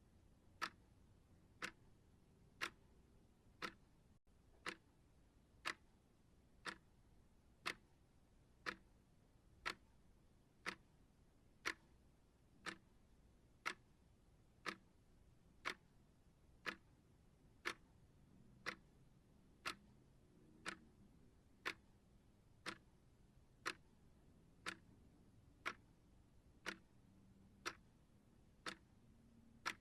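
Clock ticking steadily, one short sharp tick about every second.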